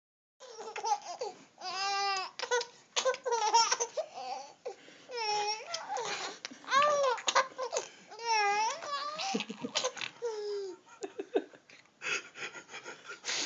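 A three-month-old baby laughing hysterically: a run of high, squealing laughs, each rising and falling in pitch, with short gaps between them.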